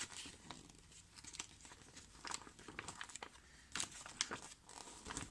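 Faint rustling and crinkling of paper being handled, with scattered light clicks and a busier patch of rustles near the end.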